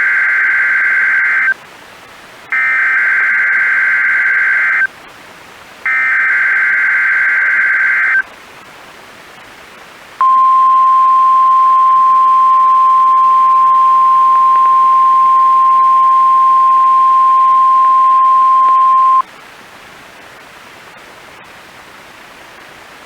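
NOAA Weather Radio SAME header: three screechy data bursts of about two seconds each, followed by the single-pitch 1050 Hz warning alarm tone held steady for about nine seconds, then faint radio hiss. This sequence activates weather alert radios, here for a test of the warning alarm.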